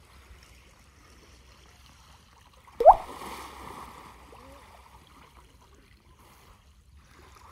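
A person diving into a lake: about three seconds in, a loud splash with a short rising shout at the moment of the dive, then the water settling over the next second or so. Otherwise only faint lapping of the lake.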